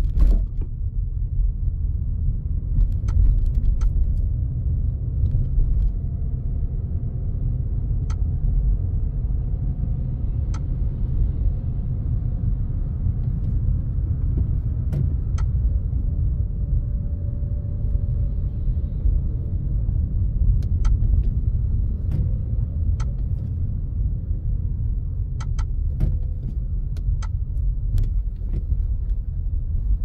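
Car on the move: a steady low road rumble with faint engine tones, and light clicks scattered through it.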